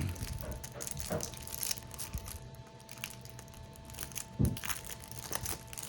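Soft rustling and crinkling of a plastic wrapper and trading cards being handled, with a couple of light knocks, about a second in and near four and a half seconds in, over a faint steady hum.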